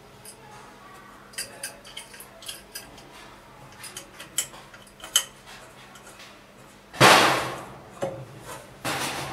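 Small metallic clicks and clinks of screws being fitted and turned by hand on a laser cutting head's mounting, then a louder clank about seven seconds in and another knock near the end.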